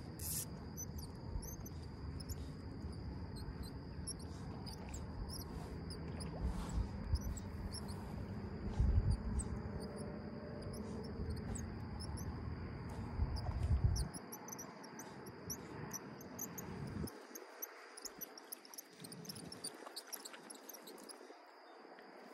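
Steady high insect buzz from the marsh grass, with scattered faint chirps and ticks. Under it runs a low rumble with a few louder gusts, which drops away about 14 seconds in.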